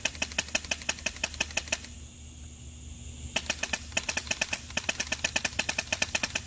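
Polarstar Kythera HPA airsoft rifle firing semi-auto as fast as the trigger can be pulled, about seven shots a second: a fast string of sharp snaps, a break of about a second and a half about two seconds in, then another fast string.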